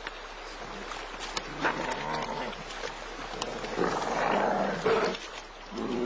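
Wolves and a young bear growling and snarling in a fight over a carcass, in several drawn-out growls with a few sharp clicks between them.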